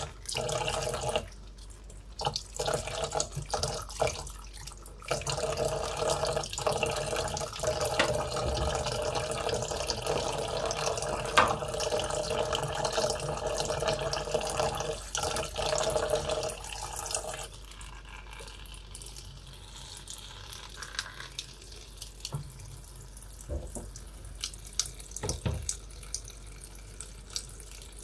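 Tap water running into a plastic basin of Malabar spinach leaves, with small splashes as a hand turns the leaves under the stream. The pouring is louder for most of the time and turns softer for the last third.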